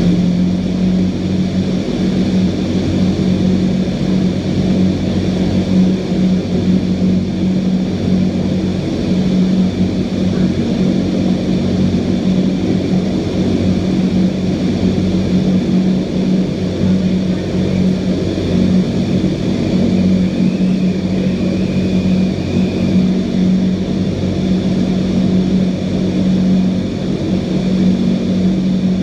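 Indoor skydiving vertical wind tunnel running: a loud, steady rush of air driven up through the flight chamber, with a constant low fan hum beneath it.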